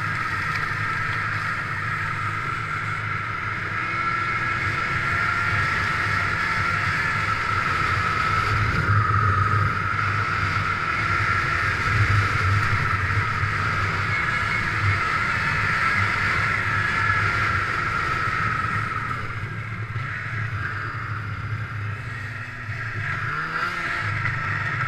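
1997 Ski-Doo MX Z 583 snowmobile's two-stroke twin engine running steadily as it travels along the trail. The engine note eases off for a few seconds about twenty seconds in, then picks up again near the end.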